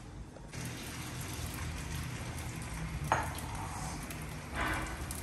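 Fried bitter gourd (karela) sizzling in a little oil in a wok over a gas flame. The sizzle starts about half a second in, a single sharp metal knock comes about three seconds in, and the sizzle swells louder near the end.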